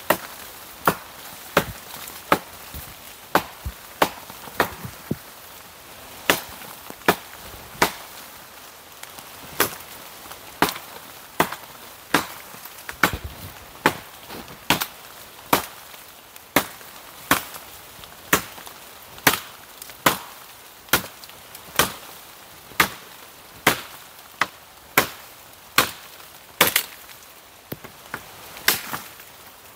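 A blade chopping into dry wood: a steady run of sharp strokes, a little more than one a second, with a few short pauses.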